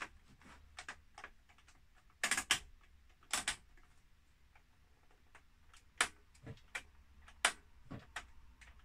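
Irregular clicks and knocks of hard plastic as the red plastic casing of a Philips D8254 radio cassette player and its detachable speaker box are handled and fitted together. There is a cluster of clicks about two seconds in and single clicks scattered through the rest.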